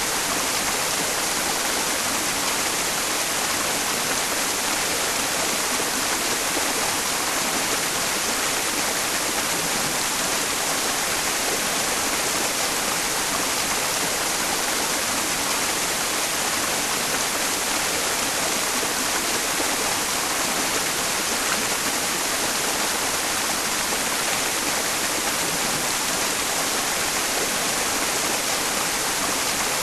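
Mountain stream flowing steadily, blended with a constant hiss of white noise.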